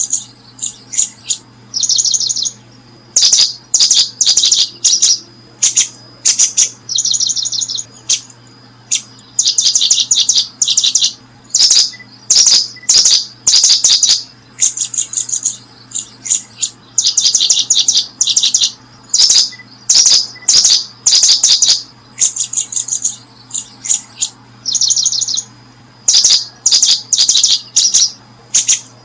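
Birds chirping close by in quick, high-pitched bursts, one after another with only short gaps, over a faint steady low hum.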